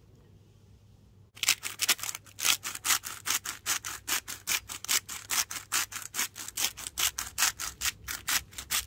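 Hand-held seasoning grinder being twisted over a bowl, grinding salt and pepper: a steady run of crunchy grinds, about four a second, starting a little over a second in.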